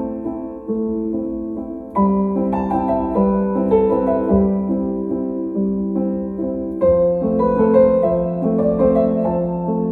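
Background piano music: slow, gentle chords and melody notes, with new chords struck about two seconds in and again about seven seconds in.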